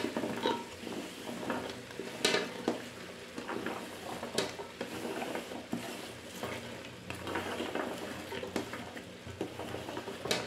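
Chopped vegetables tipped from a metal plate into a pot of hot oil: irregular knocks and clatters as pieces land and the plate and wooden spatula strike the pot, over a light sizzle.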